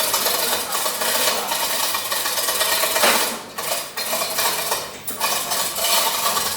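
Pieces of ice clattering and clinking against each other and hard surfaces in a dense, continuous rattle that starts suddenly, easing briefly twice.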